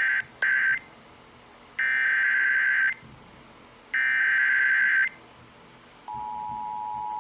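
Emergency Alert System SAME header: bursts of warbling digital data tone, the last two about a second long and spaced about two seconds apart. About six seconds in, the steady two-tone EAS attention signal starts, a chord of two pitches just under 1 kHz, slowly growing louder. It marks the start of a new alert.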